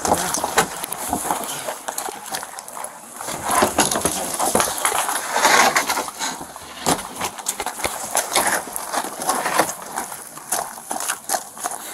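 Plastic tarp rustling and crinkling as it is handled, with scattered knocks and clatter.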